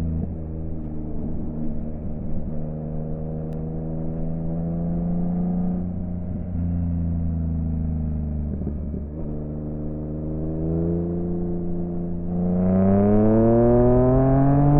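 Yamaha XSR900's inline three-cylinder engine through an M4 aftermarket exhaust, running at a steady, moderate throttle. About twelve seconds in the throttle opens, and it gets louder with the pitch climbing steadily as the bike accelerates.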